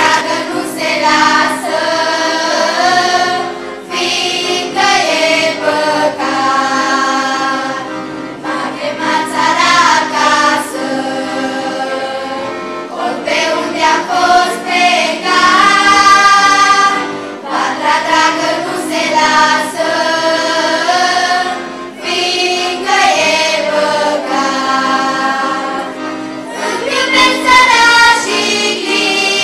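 Choir of girls and women singing together in phrases a few seconds long, accompanied by an accordion.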